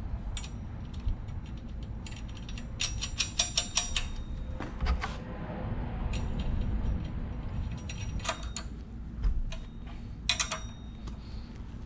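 Several short bursts of rapid metallic clicking from a hand ratchet wrench working bolts on a minibike engine, the longest run about a second long a few seconds in.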